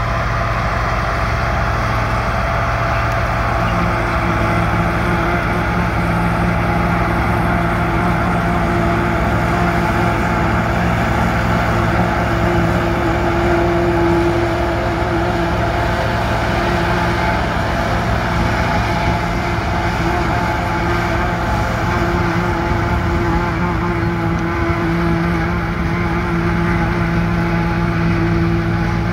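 John Deere 4450's six-cylinder turbo diesel working steadily under load, driving a John Deere 3970 pull-type forage chopper whose cutterhead and blower run continuously as it chops hay from the windrow into the wagon. An even machine hum with constant tones.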